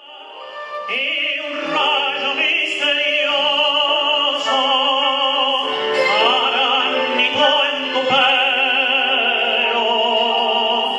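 A man singing in an operatic style with a wide, even vibrato, over sustained instrumental backing.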